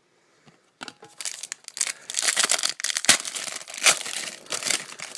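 Foil trading-card pack wrapper being torn open and crinkled by hand, beginning about a second in, with several sharp crackles.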